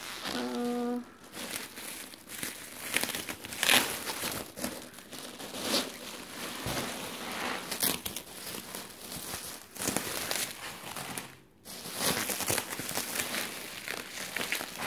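Bubble wrap crinkling and rustling as it is pulled and folded by hand to unwrap a package: an irregular stream of crackles, with louder crinkles here and there.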